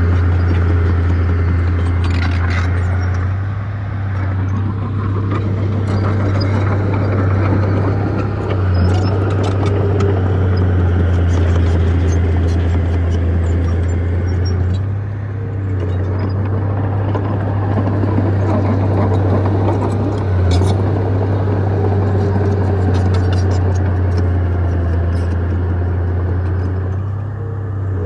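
Bulldozer's diesel engine working steadily with a strong low drone that dips briefly every five or six seconds, with scattered clanks from the machine as it pushes dirt.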